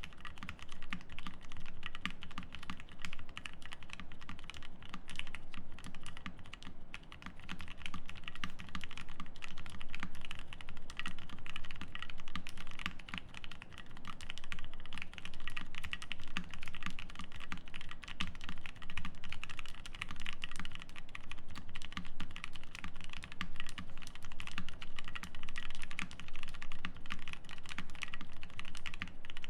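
Continuous fast typing on a Bakeneko60 mechanical keyboard with lubed, filmed Gateron Milky Yellow linear switches in an FR4 plate, under CRP Tulip keycaps: a dense, steady stream of keystrokes.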